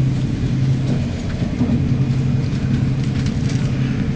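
Interior running noise of an ICE 1 high-speed train: a steady low rumble with a constant low hum, and a few faint ticks now and then.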